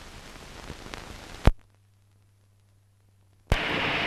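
Hiss and faint crackle of an old optical film soundtrack, broken by a loud click about a second and a half in. Near silence with a faint low hum follows for about two seconds, then a second click and a louder steady noise near the end.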